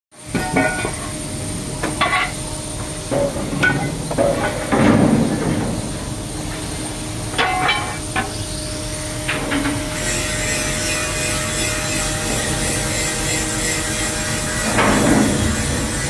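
Portable electric vacuum pump running with a steady hum, drawing down a vacuum for a leak test on a ship's speed log fitting. Several short knocks and clanks sound over it.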